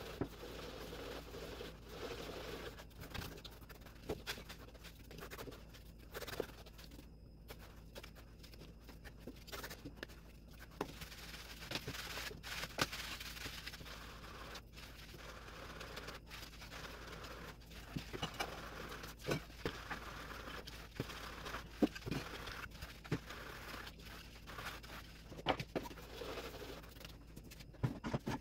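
Hands rubbing and rolling semolina grains in a wide bowl: a dry, gritty rustling scrape with many small scattered clicks. Later the grains are rubbed and shaken through a round wooden-rimmed sieve.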